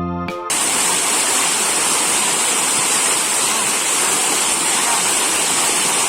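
Piano music cuts off about half a second in, giving way to the steady rush of a mountain valley stream pouring over rocks.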